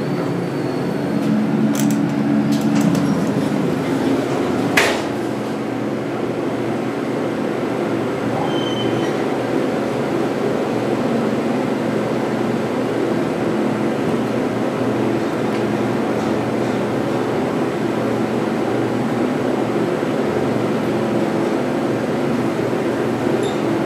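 Baxter and Sons hydraulic elevator running between floors, a steady mechanical hum and rumble from the cab, with a few light clicks and one sharp knock about five seconds in.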